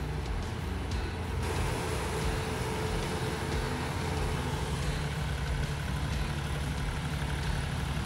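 Claas CT 40 combine harvester running steadily, engine and machinery together. The sound grows fuller and brighter about a second and a half in.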